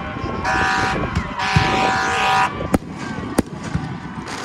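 Two blasts of a multi-tone horn, a short one about half a second in and a longer one of about a second, followed by two sharp firework bangs a little over half a second apart: fireworks set off to celebrate a score.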